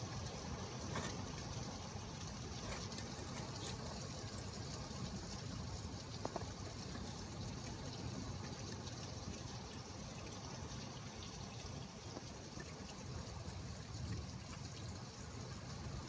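Steady rain with water trickling: an even hiss broken by a few faint ticks of drips.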